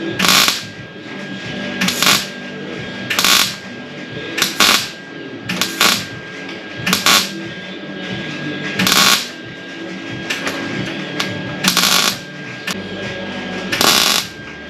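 A welder laying a string of short tack welds, about ten brief crackling bursts a second or so apart, filling pinholes in thin, rust-weakened truck sheet metal.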